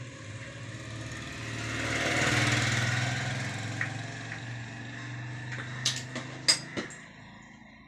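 A motor engine running, growing louder to a peak a couple of seconds in and then fading, with a few sharp clicks near the end.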